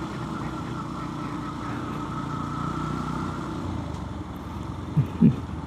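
Motorcycle engine running steadily while riding, picked up by a helmet-mounted mic. A short voice sound comes twice near the end.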